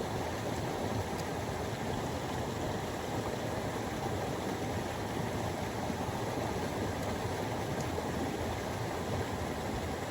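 Steady rushing of a rain-swollen river, an even noise without any distinct events.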